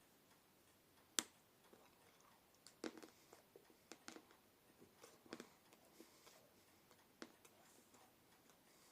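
Faint mouth sounds of someone eating a Yorkie milk chocolate bar: a sharp snap about a second in as a piece is bitten off, then scattered soft clicks of chewing.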